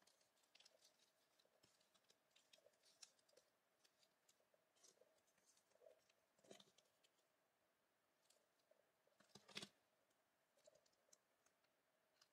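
Faint rustling and clicking of paper and plastic postcard packets being handled and shuffled, with two slightly louder crinkles about six and a half and nine and a half seconds in.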